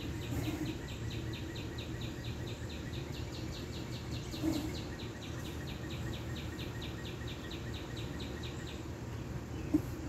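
Outdoor animal chirping: a short high chirp repeated steadily about four times a second, stopping shortly before the end, over a steady low background rumble. A single short knock near the end.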